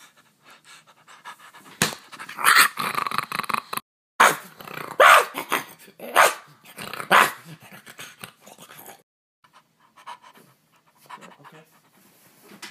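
A man imitating a dog, barking and growling in a series of loud short bursts up to about two-thirds of the way through, then only faint scattered noises.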